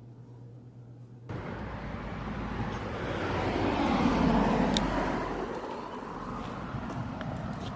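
A faint low hum, then about a second in an abrupt switch to a steady rumbling outdoor noise that swells and eases off about halfway through.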